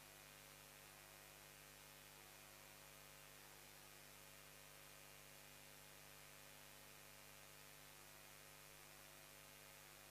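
Near silence: a faint, steady electrical hum over hiss.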